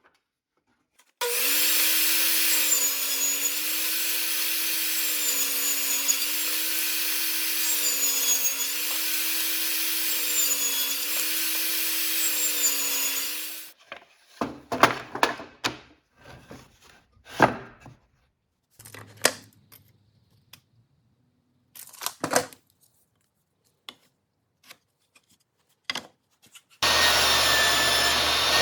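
A power tool cutting wood, running loud and steady for about twelve seconds. Its pitch dips and recovers in a regular rhythm, about once every second and a half, and then it stops abruptly. Scattered knocks and clunks of wood being handled follow, and a power tool starts up again near the end.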